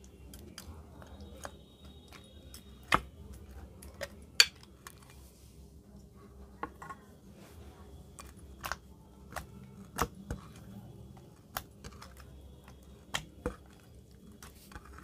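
Hands squishing and pressing clear slime mixed with blue beads against a glass dish, giving irregular sticky clicks and pops, the loudest about three and four and a half seconds in.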